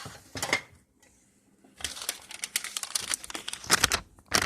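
Newsprint paper being handled, rustling and crinkling in a quick run of crackles after a short lull about a second in.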